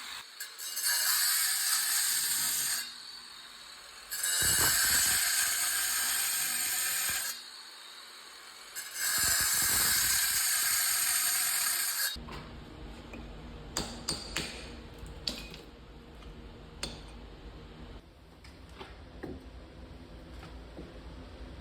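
A power tool cutting into a stone fireplace surround, run in three bursts of about two to three seconds each with short pauses between. After the third burst only scattered light clicks and knocks remain.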